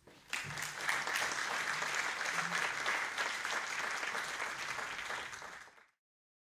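Audience applauding, a dense patter of many hands clapping that starts just after the speech ends and is cut off abruptly near the end.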